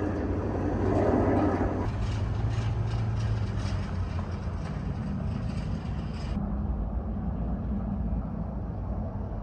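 Steady low rumble of distant engines, its deepest hum fading about three and a half seconds in.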